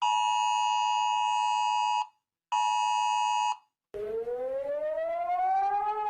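Emergency alert attention signal: a steady two-tone beep held about two seconds, then again for about a second after a short gap. About four seconds in, a siren starts low and slowly rises in pitch.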